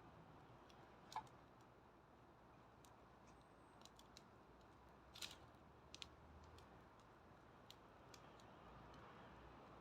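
Faint crackling of a wood fire: scattered sharp pops and ticks at irregular intervals over a soft hiss, the loudest about a second in and again about five seconds in.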